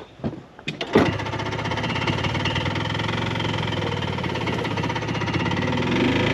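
A few clicks, then about a second in a small vehicle's engine starts and runs steadily with a rapid pulse, picking up slightly near the end.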